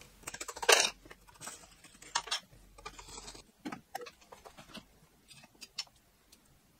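Handling noises from taking apart an Ender-3 V2 3D printer's bed assembly: scattered light clicks, knocks and rattles of metal parts being lifted off and set down, the loudest knocks about a second and two seconds in.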